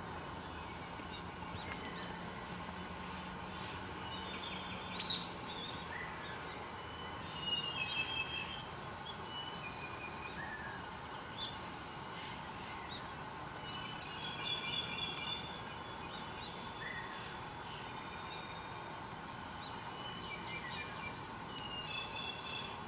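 Wild birds calling and singing now and then, short high chirps and trills in bouts a few seconds apart, over a steady background hum.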